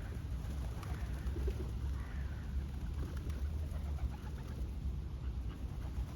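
Birds calling with faint short chirps, over a steady low rumble of wind on the microphone.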